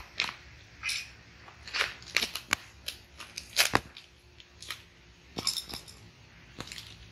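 Irregular sharp clicks and taps of small parts and hand tools being handled, the loudest about halfway through.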